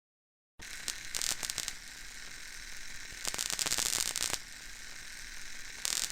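Electrical static crackling and sizzling, starting after a brief silence. A steady high hiss swells three times into louder stretches of dense crackle, like arcing sparks.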